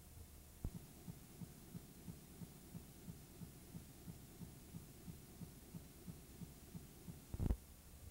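Faint low hum on a dead VHS audio track, with soft regular thumps about three a second and one louder thump near the end.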